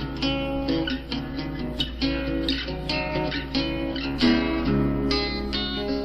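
Instrumental music: a plucked-string line, picked notes that ring and die away, a few to the second, over a steady low bed.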